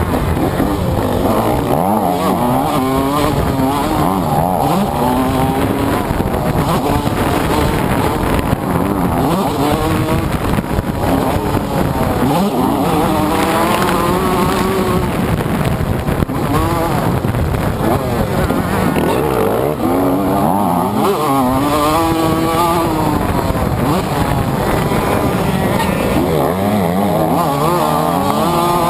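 TM MX 125 two-stroke motocross engine ridden hard on a dirt track, its pitch climbing and dropping again and again as the rider accelerates and backs off, heard from the rider's onboard camera.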